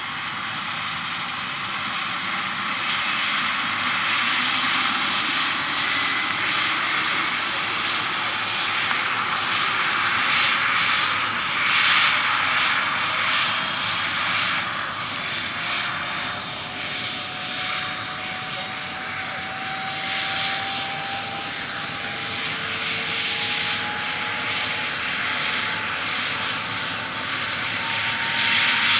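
Small gas turbine of a 50 kg scale EC135 model helicopter running on the ground, a steady whining hiss with its rotor turning. Its tones climb slowly in pitch over the second half as the rotor spins up.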